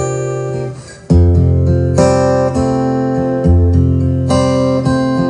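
Instrumental break of a recorded Vietnamese pop ballad played through a Harman Kardon portable Bluetooth speaker: strummed acoustic guitar chords over a bass line. The music dips briefly just before a second in, then the strummed chords come back in strongly.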